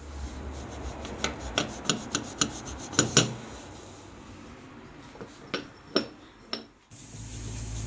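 Scrubbing grease off a kitchen stove: rubbing with a run of sharp, scraping strokes at about three a second, then a pause and a few more strokes.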